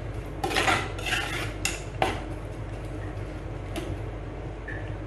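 A spoon stirring and scraping chopped ginger, garlic and shallots around an earthenware clay pot as they sauté in butter. There are a few distinct scrapes in the first two seconds, then softer stirring with a single click nearly four seconds in, over a low steady hum.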